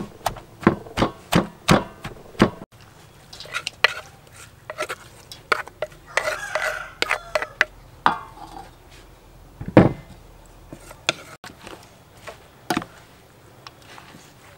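Wooden pestle pounding shredded green papaya in a wooden mortar: a quick run of dull knocks, about three a second, for the first couple of seconds. Then a wooden spoon tossing the papaya salad in a stainless steel bowl, with scattered knocks and scrapes against the metal and one louder knock about ten seconds in.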